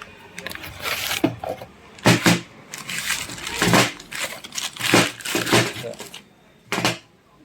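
Starter motor from a Hero Glamour motorcycle being taken apart by hand: a series of irregular metallic knocks and crunches as the housing and parts are worked loose.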